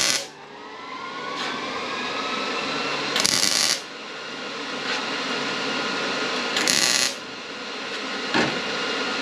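MIG welder tacking a sheet-metal body panel. The arc fires in short bursts of about half a second: one ends right at the start, then one comes about three seconds in and another about three and a half seconds later. Between them there is a steady whirring.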